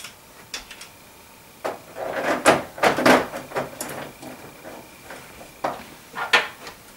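Clicks, scrapes and rattles of metal TV-mount hardware being handled: a steel bracket arm and bolts knocking against the back of a television as the bolts are set in loosely by hand. Rattling is heaviest from about two to three seconds in, with a few single clicks near the end.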